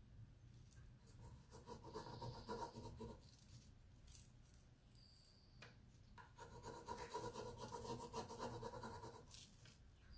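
Faint scratchy rubbing of a hand tool burnishing a rub-on décor transfer through its plastic backing sheet onto a wooden drawer side, in two spells of two to three seconds each.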